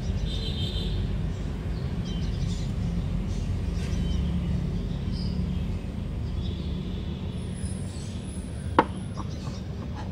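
Outdoor background of a steady low rumble with a few faint bird chirps. A single sharp click of metal engine parts sounds about nine seconds in, as a second rocker arm is picked up from the wooden board.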